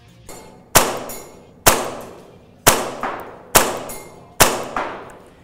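Tokyo Marui Hi Capa 5.1 gas blowback airsoft pistol, original version, firing five shots on green gas about one a second. Each shot is a sharp crack of gas and cycling slide with a short echo after it.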